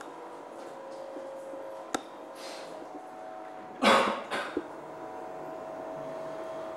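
A single short cough about four seconds in, over a steady faint hum, with a couple of faint clicks.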